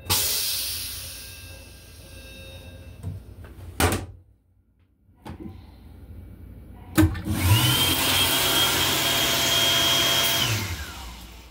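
A vacuum toilet flushing with a sudden loud whoosh that fades over about two seconds. Then, after a click, the sensor faucet runs water into the sink, with a motor whine that rises as it starts, holds steady for about three seconds and winds down as it stops.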